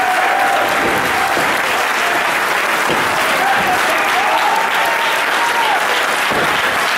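Crowd applauding steadily, with voices calling out over the clapping.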